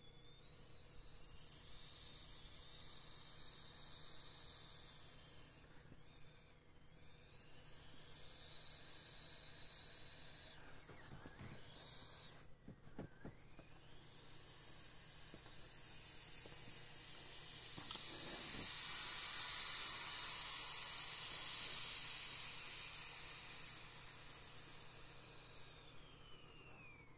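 Air hissing out of a 1988 Donetsk toy factory inflatable boat as it is pressed down by hand, with a thin whistle that wavers up and down in pitch. The hiss breaks off briefly twice, swells to its loudest about two-thirds of the way through, then fades.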